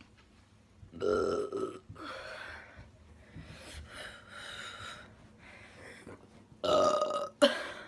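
A woman burping: a long, loud burp about a second in, quieter burps and breaths over the next few seconds, then another long, loud burp near the end followed by a short one.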